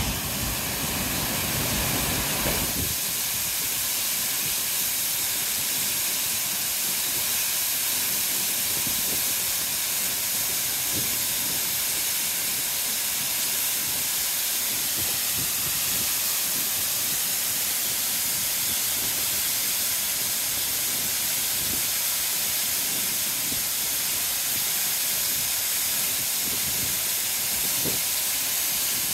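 A tall waterfall plunging down a rock face onto boulders and into a pool: a steady, even hiss of falling water. There is a deeper rumble in the first two or three seconds, which then drops away.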